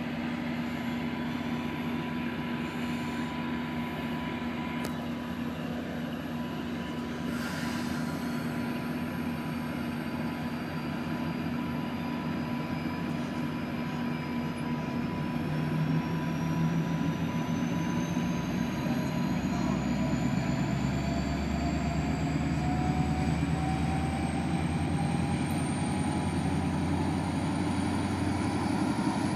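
MPI MP36PH-3C diesel-electric locomotive of a commuter train running as the train moves slowly away. About halfway through the engine throttles up, louder and deeper, and a thin whine climbs steadily in pitch as the train gathers speed.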